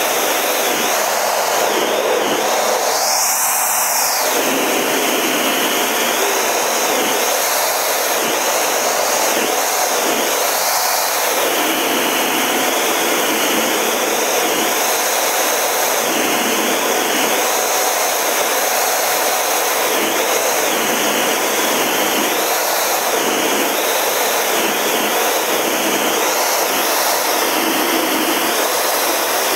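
Steady rush of jet engine and airflow noise inside the cockpit of a Canadair CT-114 Tutor jet, its single J85 turbojet running at an even pitch and level.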